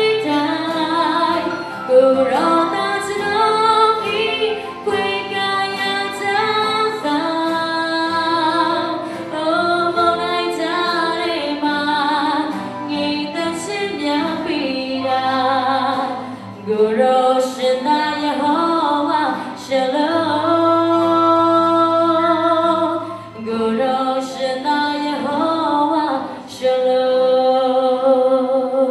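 A woman singing a gospel praise song in long phrases of held notes, with low sustained notes underneath.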